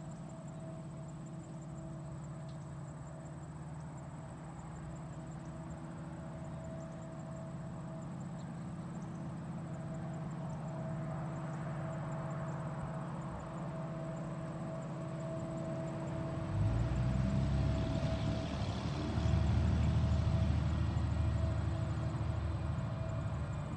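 Approaching freight train's lead diesel locomotive, a CP SD70ACU, heard before it comes into view: a steady engine hum that grows slowly louder, then swells sharply about two-thirds of the way through and again a couple of seconds later.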